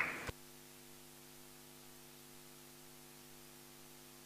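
Near silence with a faint, steady electrical mains hum. A short burst of noise at the start cuts off about a third of a second in.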